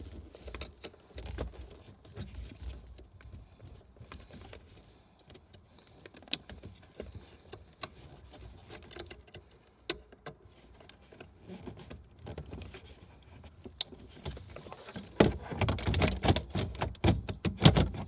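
Plastic dashboard parts being handled and fitted into place: scattered small clicks and taps, then a busier, louder stretch of clicking and knocking near the end.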